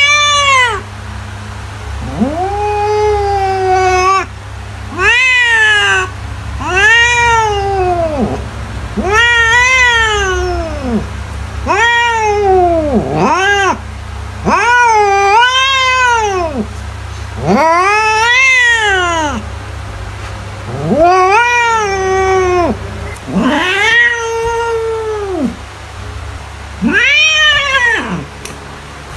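A domestic cat meowing over and over: about a dozen long, drawn-out yowling meows, one every two seconds or so, each rising and then falling in pitch. A low steady hum runs underneath.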